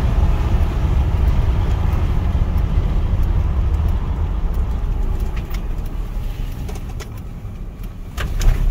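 Car driving, heard from inside the cabin: a steady low road and engine rumble that eases off about seven seconds in, with scattered light clicks and ticks over the last few seconds.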